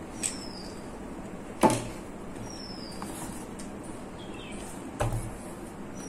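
Knocks of a cardboard box being handled and set on a table: a sharp one about a second and a half in and a second near the end. Short, high, falling bird chirps sound faintly in the background.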